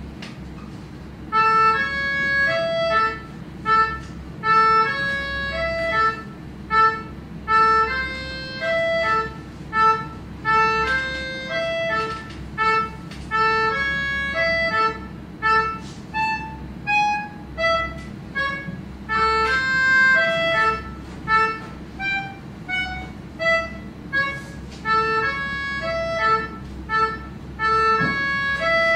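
Melodica playing a simple melody of short, separate notes, starting about a second and a half in.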